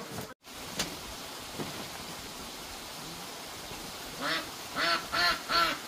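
A quick run of short, repeated animal calls, about three a second, beginning about two-thirds of the way in over a steady background hiss. A brief dropout to silence comes near the start.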